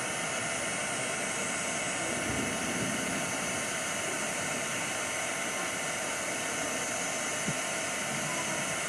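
Steady, even hiss of background noise, with a faint tick about seven and a half seconds in.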